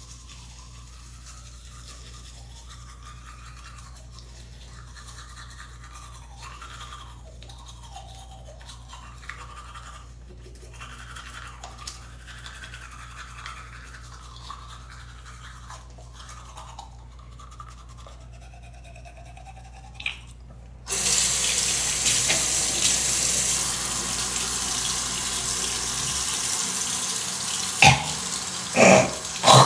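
Teeth being brushed with a toothbrush: soft, irregular scrubbing over a steady low hum. About two-thirds of the way through, a tap is turned on and water runs loudly into the sink, with two brief sharp knocks near the end.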